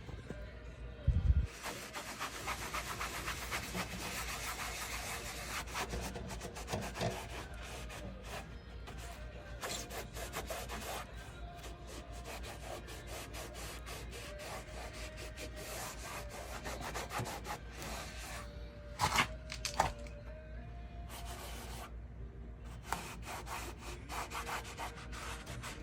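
Oil being rubbed by hand into faded plastic truck trim: an irregular scraping and wiping against the plastic, with a couple of short knocks, one about a second in and another near the middle.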